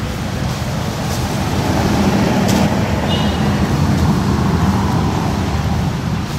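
Steady low rumble of road traffic, swelling a little louder in the middle, with a few light clicks.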